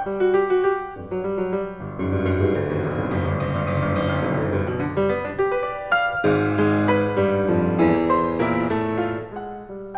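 1975 Steinway Model M grand piano playing classical music solo: a fast, dense, pedalled passage about two seconds in, then distinct struck notes and chords.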